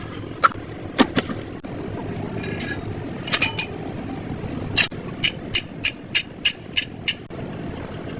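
Metal being struck with a hammer: a few scattered blows, some with a short metallic ring, then an even run of about seven strikes at roughly three a second near the end. A steady low rumble runs underneath.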